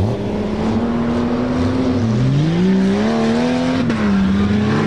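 Four-wheel-drive tuff truck's engine revving under load, its pitch climbing about two seconds in and falling back just before the four-second mark, with a sharp knock as it drops.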